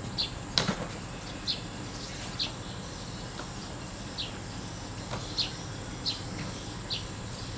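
Short high bird chirps repeating every half second to a second over a steady high whine of insects, with a few knocks of footsteps and boots on a concrete step, the sharpest about half a second in.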